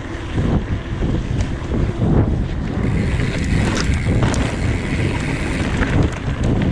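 Wind buffeting the microphone of a mountain bike's ride-along camera, over the rumble of its tyres rolling on a gravel road, with scattered clicks and rattles.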